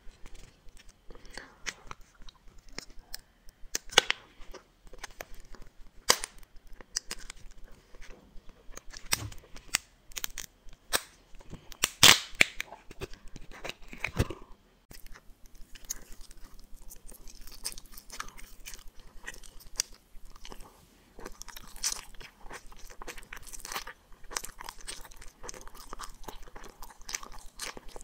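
Close-miked chewing and crunching of gummy candies: a steady run of sharp clicks, the loudest of them around twelve seconds in.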